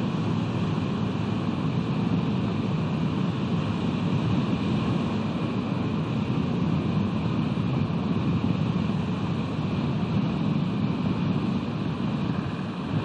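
Steady rushing noise of wind and ocean surf picked up by an outdoor nest-camera microphone on a sea cliff.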